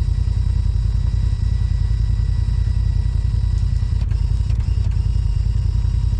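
Side-by-side UTV engine idling, a steady low rumble, with a couple of faint clicks about four and five seconds in.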